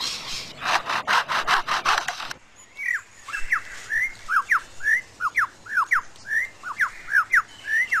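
Superb lyrebird mimicking a chainsaw with a series of rough rasping bursts for about two seconds. It then breaks off abruptly into a quick run of clear whistled notes, each a short swooping glide, several a second.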